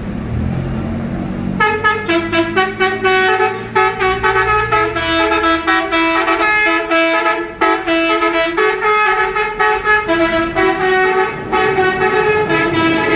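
A truck's multi-tone 'telolet' horn honking a rapid tune of stepping notes, starting about a second and a half in and going on with short breaks. Under it at first is a low diesel engine rumble that fades after a few seconds.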